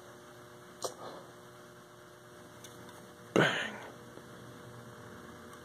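Quiet room tone with a faint steady electrical hum, and one light knock about a second in.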